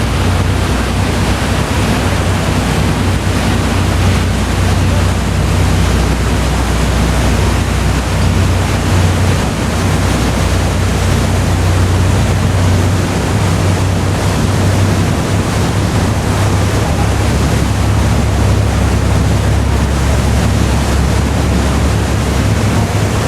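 Ferry under way at sea: a steady low drone of the vessel's engines under a loud, even rush of water and wind.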